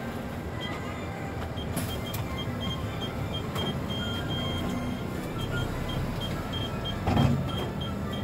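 Steady engine and road noise inside a King Long bus on the move, with a short swell about seven seconds in. A faint high intermittent beeping sounds on and off.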